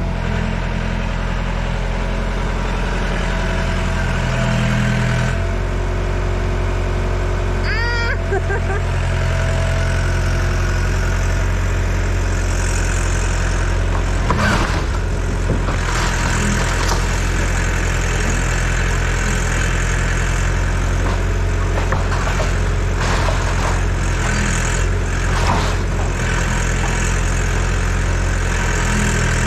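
Yanmar ViO80 excavator's diesel engine running steadily. A short squeal comes about a quarter of the way in, and scattered cracks and knocks from about halfway on, as the machine starts knocking down a garage.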